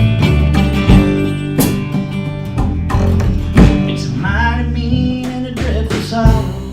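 A band playing an instrumental break: strummed acoustic guitar over bass and drums, with sharp drum and cymbal hits and a lead line that wavers in pitch about four and six seconds in.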